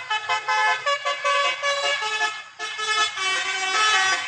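Basuri "telolet" musical air horn on a bus playing a quick tune: several horn pitches at once, stepping through short notes with a brief dip a little past halfway.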